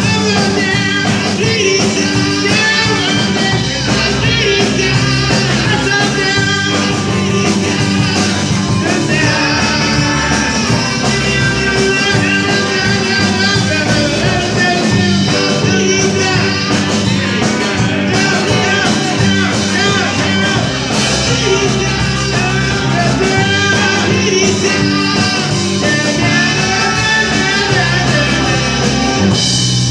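Rock and roll band playing live: electric guitars over a steady drum kit beat, heard from the room.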